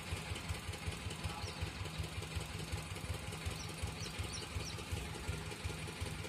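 An engine idling steadily, with a rapid, even low pulsing beat.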